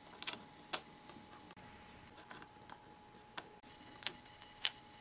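Tiny plastic replica kitchen pieces clicking and tapping against each other as they are handled: a miniature frying pan, its lid and a gyoza piece set on a little plate. There are about seven separate light clicks, the sharpest near the end.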